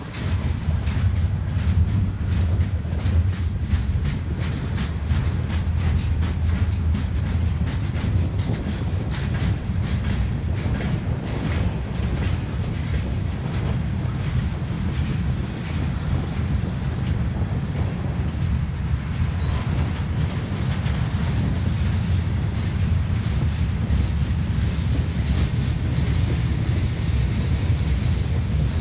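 Freight train cars, steel gondolas and then flatcars, rolling past at close range: a steady low rumble of steel wheels on rail with rapid, irregular clicking and clacking of the wheels over the track.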